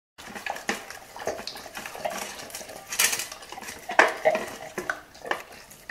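A Labrador eating chicken bones from a metal bowl: irregular clatters and knocks of bones and teeth against the bowl. The bowl rings briefly after the louder hits, and the hardest knocks come about three and four seconds in.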